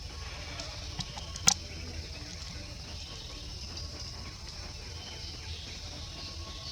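Outdoor ambience: a steady high-pitched hiss over a low rumble, with one sharp click about a second and a half in and a fainter click just before it.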